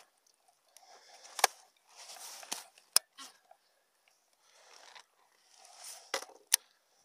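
Light splashing of a small hooked fish at the surface as it is brought alongside and lifted out of the water, with four sharp clicks of tackle.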